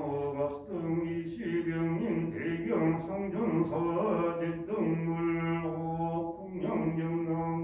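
Buddhist chanting: a voice intoning long held notes, moving to a new pitch every second or so.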